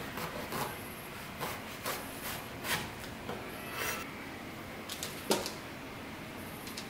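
Chef's knife slicing an eggplant lengthwise on a wooden cutting board: soft cutting strokes and light taps of the blade on the board at an uneven pace, with one sharper knock about five seconds in.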